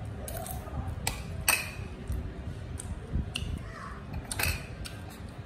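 A ceramic bowl and metal spoon being handled on a tabletop, giving several sharp clinks and knocks.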